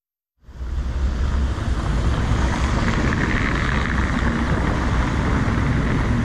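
A car driving: steady road and engine rumble with wind noise on the microphone, starting abruptly about half a second in.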